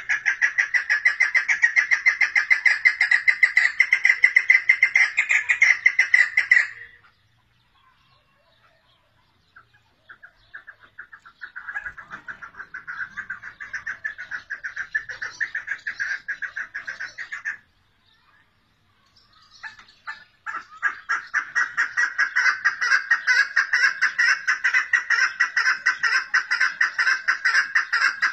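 Female chukar partridge calling in a thin voice: long runs of quick, evenly repeated notes, in three bouts with short pauses between them.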